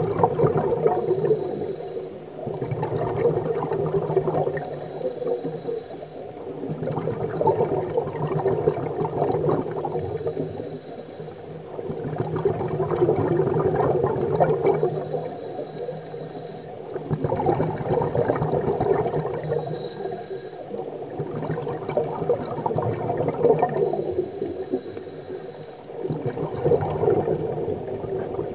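Scuba diver breathing underwater through a regulator: bubbling exhalations alternate with quieter hissing inhalations in a steady cycle, about one breath every four to five seconds.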